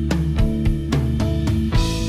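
Background music: guitar over a steady drum beat, with a cymbal crash near the end.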